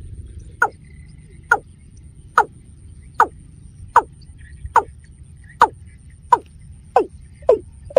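Watercock calling: a series of about ten short, hollow notes, each falling in pitch, repeated roughly once a second and quickening toward the end.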